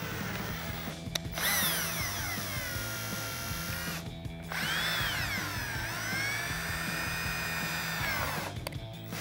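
Cordless drill with a 7/32 bit boring holes into a plastic grille, run slowly: its motor whine rises and falls in pitch as the trigger is eased. It stops briefly about a second in, about four seconds in, and again near the end.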